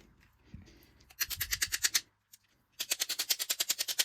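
Rapid, evenly spaced clicking in two bursts of about a second each, about a dozen clicks a second, from a TrackMaster R/C Thomas toy engine's drive as it is powered but does not run.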